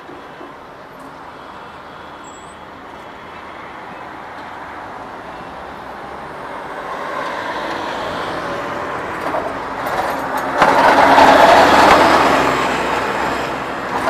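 Road traffic heard from a moving e-bike: a vehicle's rushing noise grows steadily louder, jumps up sharply about ten and a half seconds in as it passes close, then eases off.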